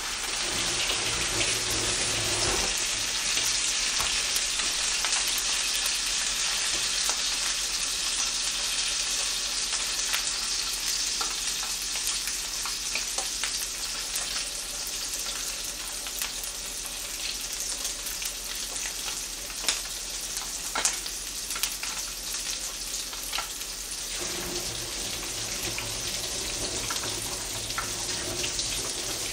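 Mackerel fillet frying in a pan, sizzling steadily, with a few sharp crackles about two-thirds of the way through.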